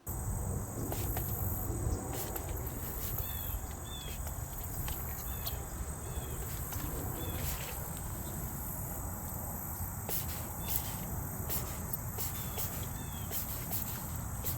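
Outdoor ambience: a steady high-pitched insect drone, with short chirps recurring every second or so over a low rumble, starting abruptly.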